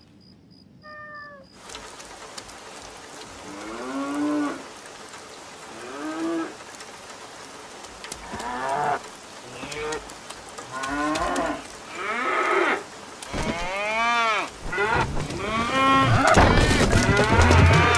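Squeaky, moo-like calls of cartoon balloon cows: a series of short pitched cries that each rise and fall, coming closer together and overlapping and growing louder near the end. A brief high squeak sounds about a second in.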